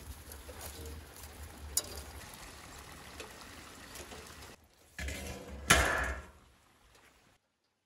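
A steady rushing noise with one sharp click, then a loud metal clatter about five and a half seconds in, as a round metal lid is set down over the clay tandoor's opening.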